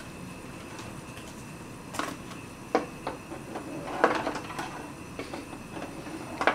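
Light handling clatter: three sharp knocks and some rattling over a faint steady hum with a thin high tone.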